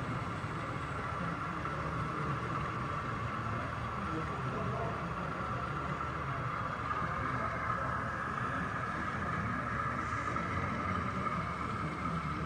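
Busy exhibition hall ambience: indistinct crowd chatter over a steady hum and a continuous whine.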